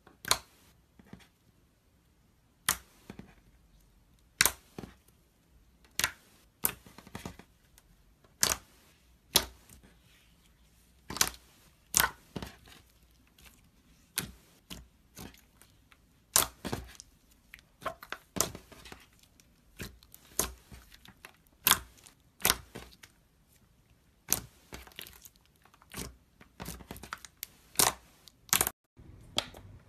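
Clear glossy slime with pink glitter being pressed, folded and kneaded by hand, giving sharp sticky pops and crackles about once a second.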